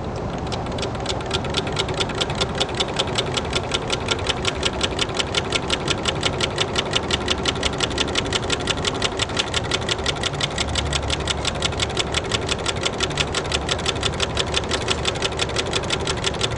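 Large hot-air Stirling engine, heated by sunlight concentrated through a Fresnel lens, running at a steady speed with a rapid, even mechanical ticking, several ticks a second.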